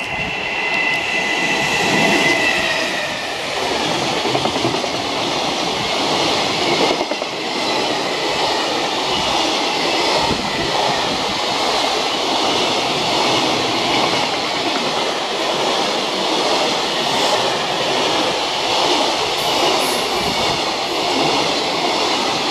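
JR Freight EF210 electric locomotive and a long train of fully loaded container wagons passing close by at speed: a continuous loud rumble and clatter of wheels on rail. A high whine in the first three seconds dips slightly in pitch and fades as the locomotive goes by.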